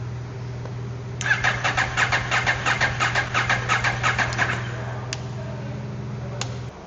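KTM 790 Adventure's parallel-twin engine turned over by the starter motor for about three seconds, a rapid train of pulses that dies away without the engine catching: the hard-start fault. Under it runs a steady hum, taken for the fuel pump priming, which cuts out near the end, and two sharp ticks follow the cranking.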